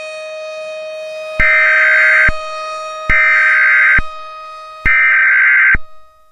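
Three one-second bursts of Emergency Alert System SAME digital data tones, a harsh warbling screech, evenly spaced about 1.7 s apart with a click at the start and end of each. They follow the spoken message as the end-of-message signal. A steady low hum runs under them and stops with the last burst.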